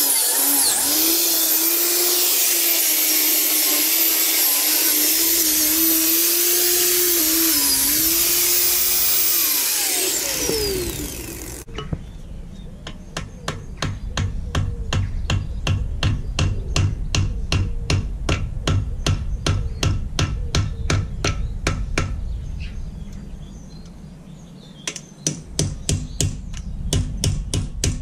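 Angle grinder working on the old trolley's rusty steel frame, then spinning down with a falling whine. After that, a long run of sharp hammer blows on metal, about three a second, as a tool held against the trolley's metal wheel is knocked to strip off rust and muck; the blows pause briefly near the end, then start again.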